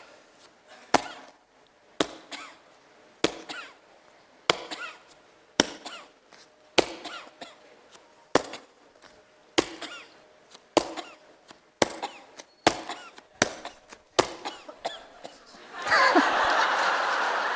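Sharp hand claps at uneven intervals, roughly one a second, about a dozen in all, each followed by a short cough in answer: a cough-on-cue drill for retraining the pelvic-floor reflex. Near the end there is a louder rush of noisy sound lasting about a second and a half.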